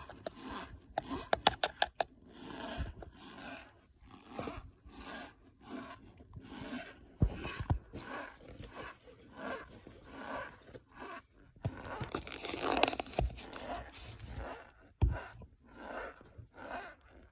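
Cornstarch being squeezed and crunched, giving a steady run of squeaky, crunchy bursts about every half second to second, with a quick cluster of sharp crackles near the start.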